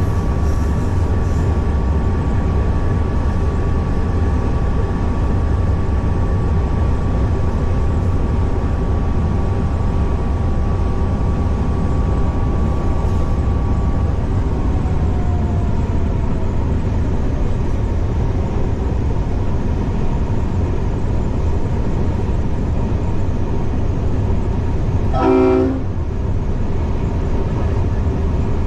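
A V/Line A class diesel locomotive under way, heard from the cab as a steady low rumble. A steady whine stops about halfway through, with one note sliding down in pitch. Near the end the locomotive's horn gives one short toot of about half a second.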